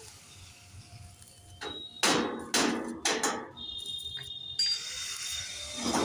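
Metal being struck: a quick run of about five hammer-like clanks a little under two seconds in, leaving a faint metallic ringing, then another heavy clank at the very end.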